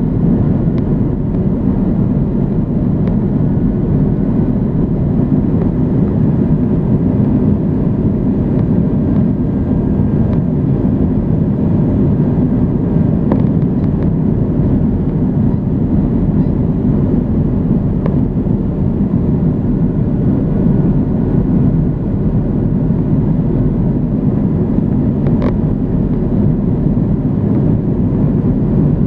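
Airbus A320 cabin noise on the landing approach: the steady low rumble of the engines and rushing air, heard from inside the cabin, with a faint steady whine above it.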